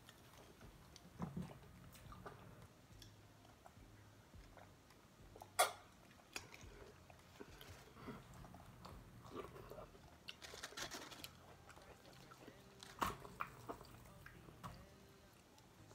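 Chewing and crunching of fried whole chicken wings as they are torn apart and eaten, faint, with scattered sharp crackles, the loudest about five and a half seconds in and another about thirteen seconds in.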